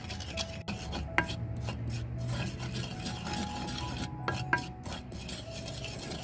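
Wooden spoon scraping and stirring dry curry powder around a clay pot: a gritty rasp of repeated strokes, with two sharper clicks, about a second in and again about four and a half seconds in.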